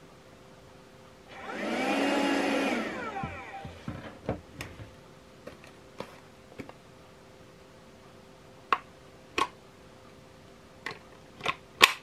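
Kärcher WV 2 battery window vac's suction motor switched on for about two seconds, then switched off and winding down with falling pitch. Then a string of plastic clicks and snaps as the nozzle is taken off and another fitted, the loudest snaps near the end.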